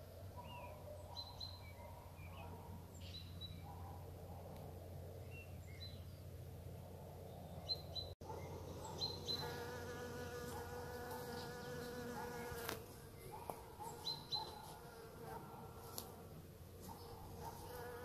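A flying insect buzzing close by: a steady, pitched drone heard from about nine seconds in to nearly thirteen, and again near the end. Small birds chirp short, high notes throughout.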